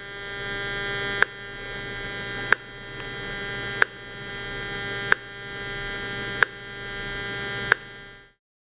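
RF meter's speaker giving a steady electronic buzz, punctuated by a sharp click about every 1.3 seconds: its audio rendering of pulsed microwave transmissions. The sound cuts off near the end.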